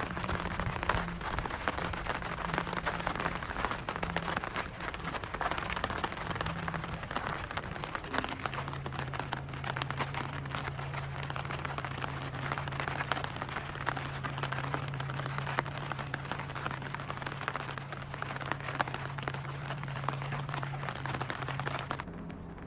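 Rain pattering: a dense, even crackle of many small drops on a surface. A steady low hum comes in underneath about a third of the way in, and both stop abruptly just before the end.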